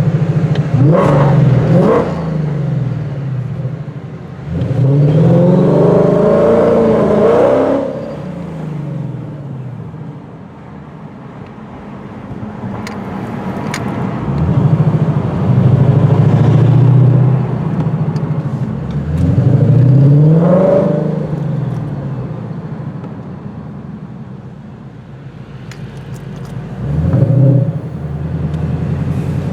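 Clive Sutton CS800 Ford Mustang's supercharged V8 accelerating hard in several bursts, the engine note rising steeply in pitch through the gears each time, with a steady drone at constant speed in between and quieter stretches where the driver eases off.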